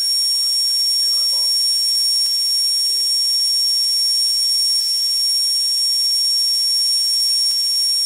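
Simulated high-speed dental drill (air-turbine handpiece) sound from a haptic dental simulator: a steady high-pitched whine over a hiss, running level and unbroken while the virtual burr cuts the tooth.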